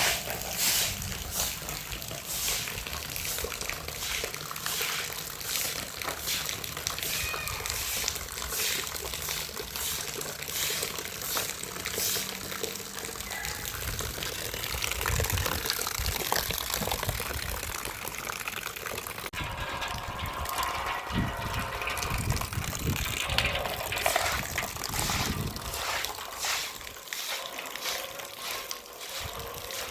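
Water running and splashing, with frequent short knocks and clatter, changing abruptly about two-thirds of the way through.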